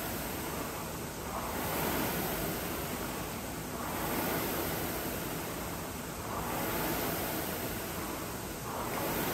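Concept2 rowing machine's air flywheel whooshing, swelling with each stroke about every two and a half seconds at a steady pace.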